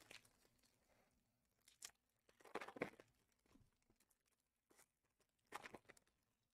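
Faint rustling and crinkling of trading-card box packaging being handled, in a few short bursts between stretches of near silence.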